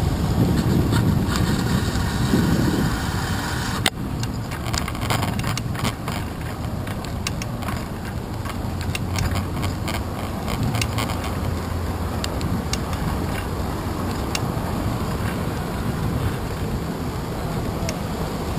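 Wind and road noise from a bicycle ridden in the rain, picked up by a handlebar-mounted GoPro, with motor traffic running alongside. From about four seconds in there are many scattered sharp clicks and knocks.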